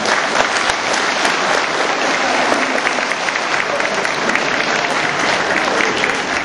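Large crowd clapping steadily.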